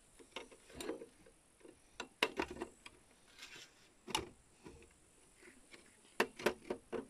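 Irregular light metallic clicks and knocks from the metal leg tubes of a folding fishing table as they are handled and pushed into the table's frame. There is a quick cluster about two seconds in, a single click near four seconds, and another cluster near the end.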